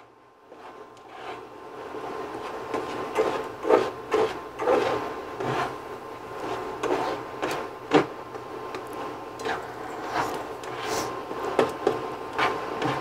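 A plastic slotted spatula scraping and stirring cooked carnivore rice around a nonstick skillet as it sautés, in irregular strokes and taps, over a steady low hum.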